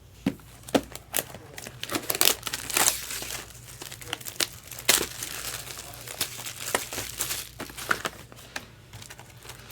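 Trading-card pack wrappers crinkling and tearing as packs are opened, a run of irregular sharp crackles and snaps.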